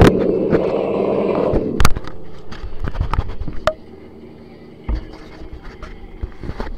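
Radio-controlled car driving over rough park ground, its motor running with a steady drone under the crunch and rattle of the tyres and chassis. A hard knock just before two seconds in, after which the motor drops away and only scattered clicks, scrapes and a thump remain.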